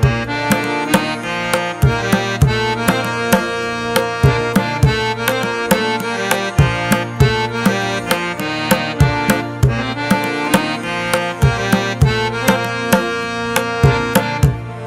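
Background music: sustained pitched instruments over a steady hand-drum beat.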